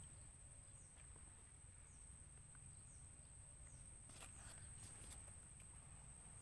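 Near silence: faint outdoor ambience with a low rumble, a faint steady high whine, a few faint short chirps, and a few light clicks about four seconds in.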